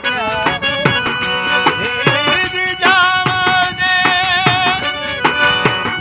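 Folk music on harmonium and a hand frame drum: the harmonium holds steady chords and melody while the drum keeps a regular beat. From about two seconds in, a voice sings a long held line with vibrato over it.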